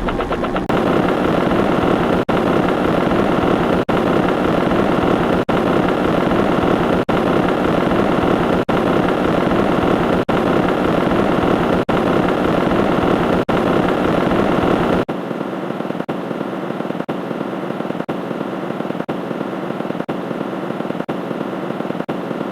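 A steady engine-like running sound effect with brief gaps about every second and a half. About fifteen seconds in its deep low end drops away and it sounds thinner.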